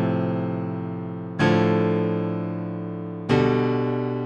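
Three-note piano chords played with the left hand, one struck about every two seconds and left to ring and fade. A new chord comes in about a second and a half in and another about three seconds in.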